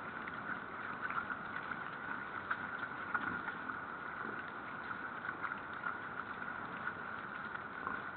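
A herd of wild boar feeding on grain scattered over snow: many small irregular crunches and clicks of chewing and rooting over a steady hiss.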